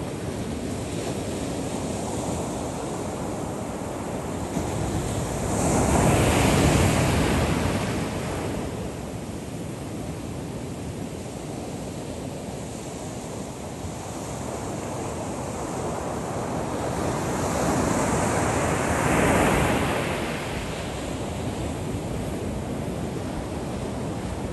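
Heavy storm surf breaking and washing up a sandy beach, a steady rush of water with two louder breakers, one about six seconds in and another near the end of the second third.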